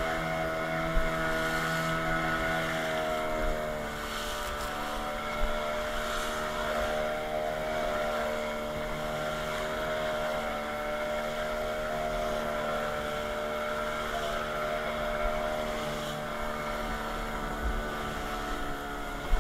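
Fishing boat's motor running steadily at speed, its note dropping slightly a few seconds in, with the hull slapping through the waves and spray now and then.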